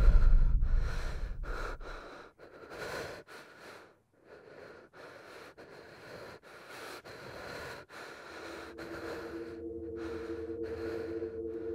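A man's gasping, panting breaths, a quick run of short breaths about every half second, following the fading tail of a loud boom. About eight seconds in, a low held two-note musical drone comes in under the breathing.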